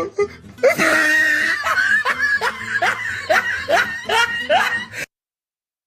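Comedy laughter sound effect: a snickering laugh in quick rising strokes, about two and a half a second, that cuts off abruptly about five seconds in.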